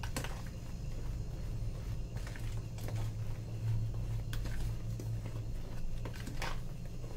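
Metal spoon stirring flour, dry yeast and salt in a plastic bowl: soft scraping with a few light clicks of the spoon against the bowl, over a steady low hum.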